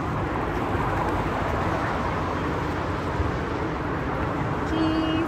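Steady outdoor background rumble, with a brief pitched tone a little before the end.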